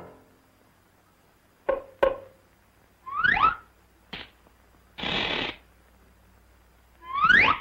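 Sparse cartoon sound effects: two short knocks, a quick rising whistle glide, a click, a half-second hiss, and another rising whistle glide near the end.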